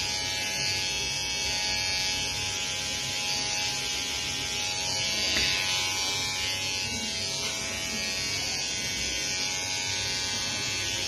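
A small electric motor buzzing steadily, with a constant hum.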